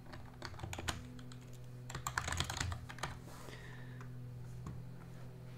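Typing on a computer keyboard: a run of key clicks over the first three seconds, busiest around two seconds in, then stopping. A faint steady low hum underneath.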